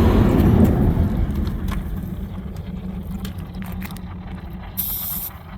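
A vehicle's low road rumble fading away over the first few seconds, over a steady low hum, with a brief hiss about five seconds in.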